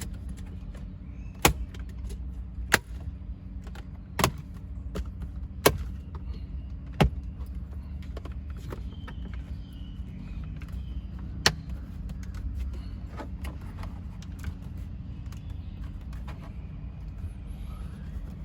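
Plastic dashboard trim being handled and pressed into place around a car's climate control unit: about half a dozen sharp clicks and taps, spread through the first half, over a steady low hum.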